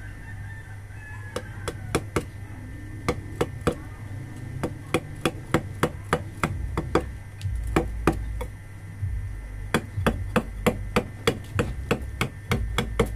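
Mallet striking a hand chisel that cuts into soft natural carving stone: a long run of sharp, irregular taps, mostly two or three a second, starting about a second in.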